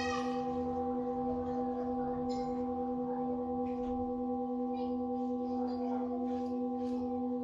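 A struck singing bowl ringing on in a long sustained hum of several steady tones, with a slight regular pulsing in its loudness.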